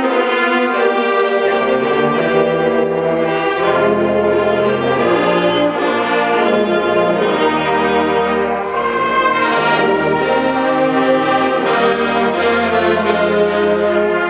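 Concert band playing: woodwinds and brass holding sustained chords that move in steps, with low bass notes joining about a second and a half in.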